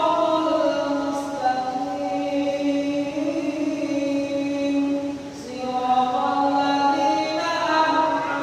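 An imam's solo male voice in melodic Quran recitation, holding long, drawn-out notes. There is a short breath pause about five seconds in before the chant resumes.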